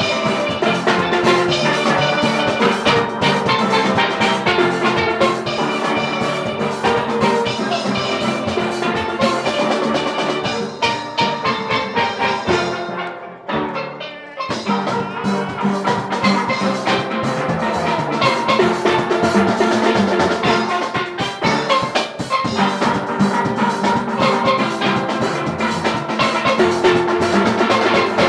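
Upbeat band music with a steady percussive beat, dropping away briefly about halfway through before picking up again.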